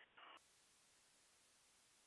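Near silence: a faint steady hiss on the audio line, with the faint tail of a spoken word at the very start.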